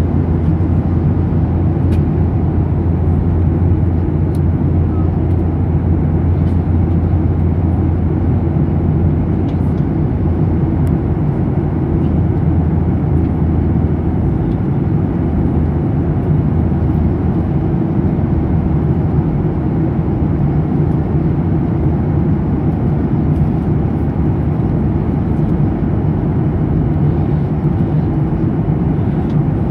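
Steady cabin noise of a jet airliner in flight, a continuous drone of engines and rushing air heard from a window seat. The low hum eases slightly about halfway through.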